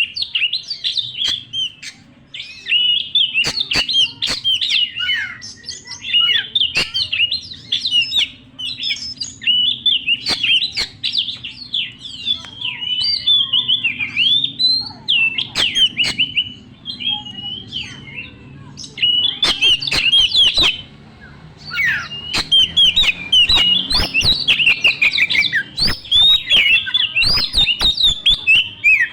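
Young wild Oriental magpie-robin (kacer) singing loudly and continuously: a rapid, varied run of whistled and chattering phrases with sharp clicking notes, broken by a couple of brief pauses. A faint steady low hum lies underneath.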